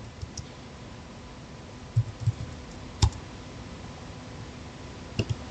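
Keystrokes on a computer keyboard: a few scattered key clicks, with a sharper one about three seconds in and two quick ones near the end, over a steady low hiss.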